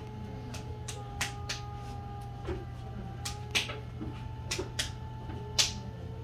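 Brent electric potter's wheel running with a steady hum and faint whine, under irregular sharp wet clicks and slaps of hands working slippery clay on the spinning wheel head.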